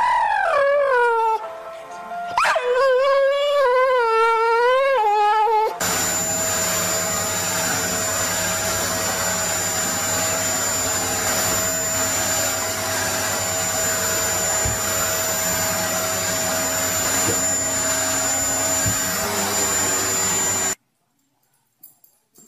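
A dog howls in two long, wavering howls that rise and fall in pitch. Then a vacuum cleaner runs steadily for about fifteen seconds and cuts off suddenly near the end.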